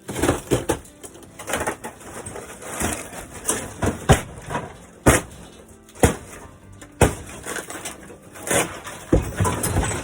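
Old RV ceiling being torn down: boards and panels ripped and pried loose, with a run of sharp bangs and cracks, about one a second in the middle, over scraping and rustling of the material.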